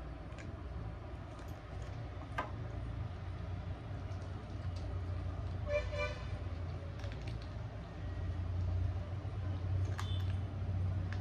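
A short, high honk of a vehicle horn about six seconds in, over a steady low hum, with a few sharp clicks scattered through.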